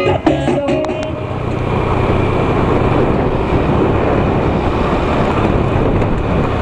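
Background music ending about a second in, then steady wind rush on the microphone and engine noise from a motorcycle being ridden.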